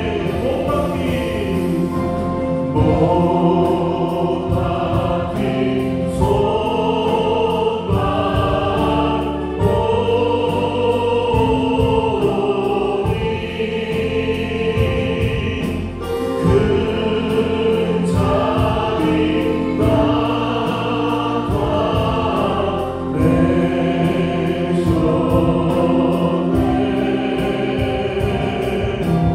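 A church praise band plays a Korean worship hymn live: a group of voices sings over keyboard, bass guitar and a drum kit, with a steady drum beat throughout.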